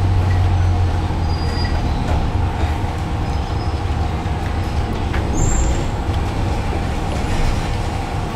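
Electric trolleybus heard from inside the cabin while it idles and creeps in traffic: a steady low rumble with a constant electrical hum. A brief high squeak comes about five seconds in.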